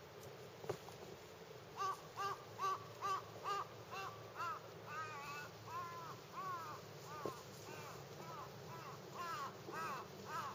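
A crow cawing over and over, a long run of short calls at about two a second that starts about two seconds in.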